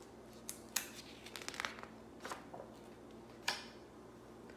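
A page of a picture book being turned by hand: a few soft paper rustles and light taps, the last about three and a half seconds in.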